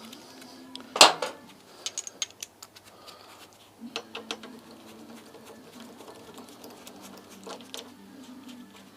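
Metal hand tools and bolts clinking while the front brake caliper's pad bolts are worked loose: one sharp clank about a second in, then a run of small ticks and clicks, and scattered light clicks after.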